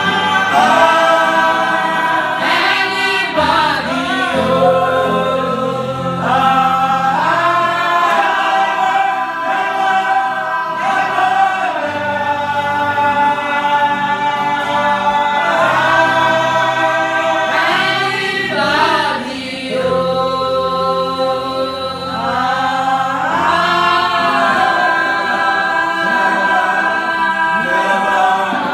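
Gospel choir singing in harmony, holding long chords with gliding changes between them and steady low notes underneath.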